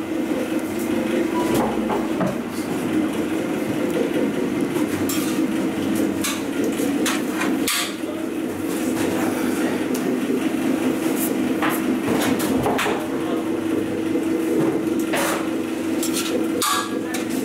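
Scattered clanks and scrapes of a hand tool against the stainless-steel bowl of a large dough mixer as kneaded dough is worked out of it, over a steady machine hum.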